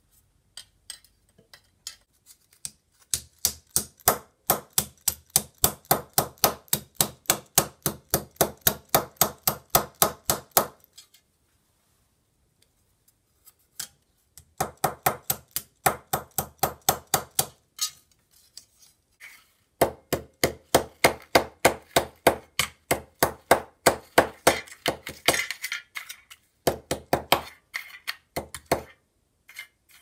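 A small plastic-headed mallet tapping the thin sheet-metal hopper bowl of an antique coffee grinder in quick, even runs of light metallic taps, about three a second, with short pauses between runs. The taps are working the dented bowl back into shape.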